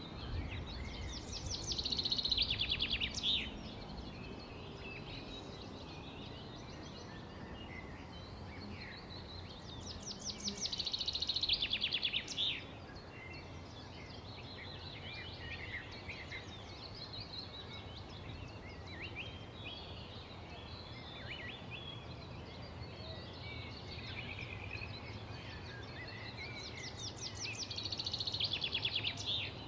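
Birds singing: a loud, fast trilled song comes three times, each phrase lasting a second or two, with quieter chirps from other birds in between, over a steady background hiss.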